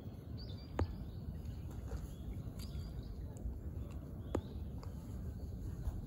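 A steady low outdoor rumble with a few faint, short, high bird chirps scattered through it, and two sharp clicks, about a second in and again near four and a half seconds.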